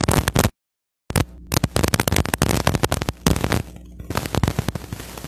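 Rapid, irregular loud crackling clicks and pops on the microphone, cutting out to dead silence for about half a second near the start, then thinning to a steady hiss near the end.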